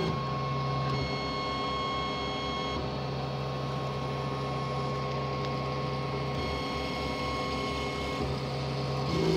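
40 W laser cutter cutting wood: its head-drive motors whine with steady tones that switch pitch every second or few as the head changes direction, over a steady hum.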